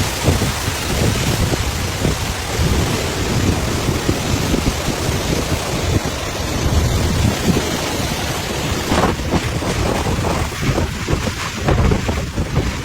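Typhoon storm noise: heavy wind-driven rain and gusts rushing without a break, with irregular low rumbles of wind buffeting the microphone.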